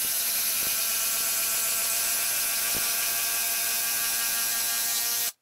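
Ryobi P261 18V impact driver hammering continuously as it drives a long screw into a log: a steady mechanical rattle that stops abruptly near the end.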